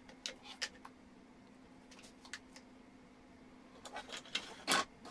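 Plastic housing parts of a dismantled steam iron being handled and set on a tabletop: scattered light clicks and knocks, with the loudest, a short clatter, near the end.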